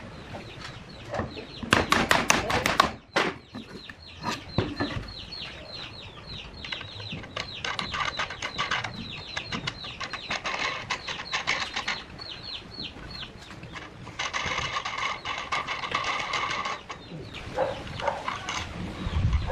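Chickens calling: many rapid, high, downward-sliding peeps, with clucking. A cluster of sharp clicks or knocks comes about two seconds in.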